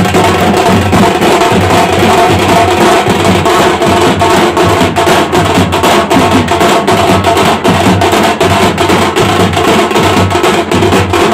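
A band of large steel-shelled drums beaten with sticks, playing a fast, even, driving beat for dancing, with a sustained note running under the drumming.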